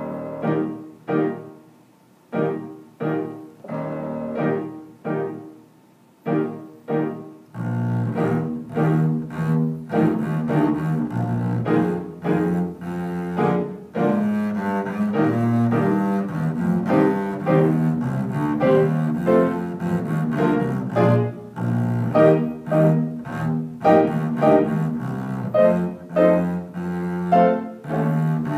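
Piano opens with a run of short, detached chords. About seven seconds in, a double bass enters, bowing a slow, low melody over the piano accompaniment.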